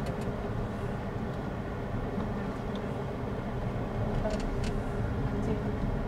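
Car driving along, with a steady low rumble of engine and road noise heard from inside the cabin.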